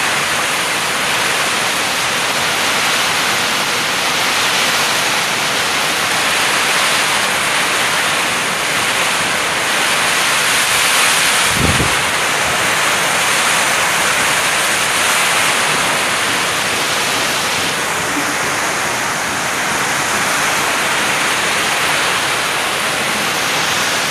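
Heavy typhoon rain pouring down steadily, a loud even hiss of rain on the street and roofs. There is a brief low thump about twelve seconds in.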